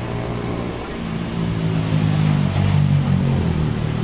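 Fuel-injected engine being revved during a tune-up: the engine speed rises about a second in, holds, and eases back near the end.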